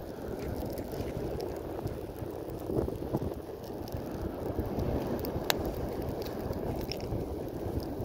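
Wind rumbling on the microphone, over a wood fire crackling with scattered small snaps and one sharp pop about five and a half seconds in.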